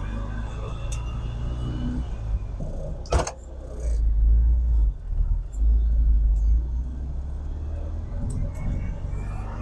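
A 1969 VW bus's air-cooled flat-four engine pulls under throttle, heard from inside the cab with a low rumble. The rumble swells heavily from about four seconds in as the pedal is pushed further, working through the new throttle linkage. A sharp knock sounds once about three seconds in.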